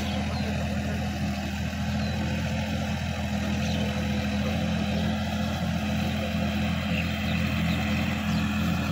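Sonalika DI-50 RX tractor's diesel engine running steadily under load as it tills a wet, muddy field, a low even drone with no change in pitch.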